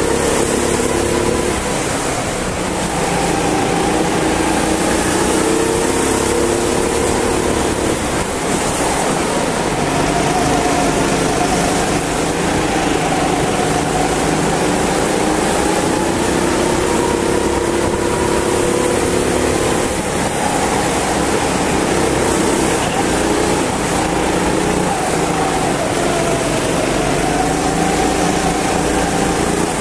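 Go-kart engine heard from on board at racing speed, its revs rising along the straights and dropping back into the corners, over a steady rush of noise.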